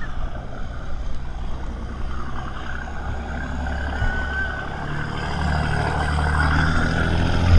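Parasail tow boat's engine running steadily, growing louder toward the end as the rider is winched down close to the deck, with wind rushing over the camera microphone.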